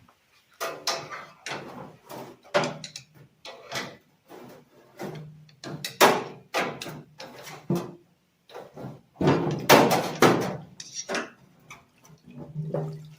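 Repeated clunks, knocks and scraping of a metal engine case half being handled and lifted out of a parts-cleaning tank: a busy run of short, sharp impacts, some much louder than others.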